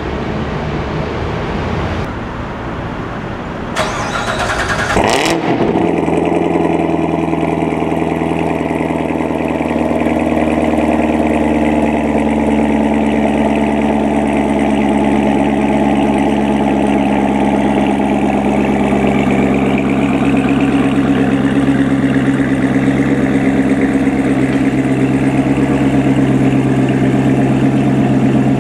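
Street traffic noise, then about five seconds in a Corvette C7 Stingray's 6.2 L LT1 V8 starts up through its aftermarket Corsa exhaust. It settles into a steady, loud idle, its pitch easing down slightly over the following seconds as the start-up idle drops.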